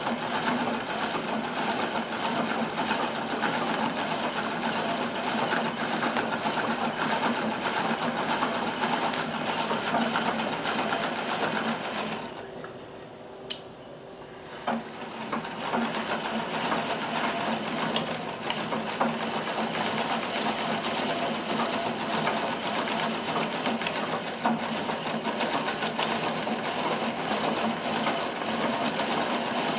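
Singer slant-shank sewing machine, driven by a treadle, running steadily through free-motion stitching with the feed dogs covered. It stops for about three seconds just before the halfway point, with a sharp click, then starts stitching again.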